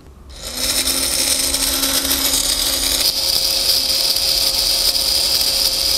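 Small electric motor switched on about half a second in, then running steadily as it reels in the fishing line that pulls the model's springs and blocks.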